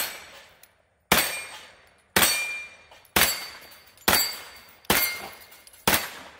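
Aimed semi-automatic fire from an AK-pattern rifle: one shot right at the start and six more, roughly one a second, each with a short echoing tail. After several of the shots a thin ringing follows, the steel targets being hit.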